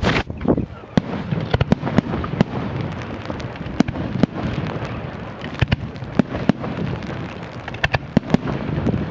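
Fireworks going off: an irregular run of sharp bangs, several a second, over continuous crackling and rumble, with a dense cluster of bangs at the very start.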